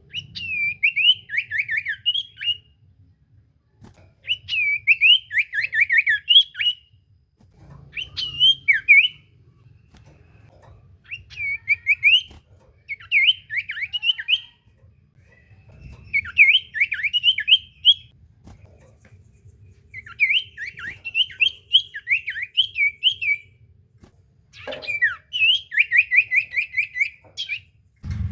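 Common iora (cipoh) singing: about eight bursts of fast, repeated chattering notes, each lasting one and a half to three seconds, with short pauses between them.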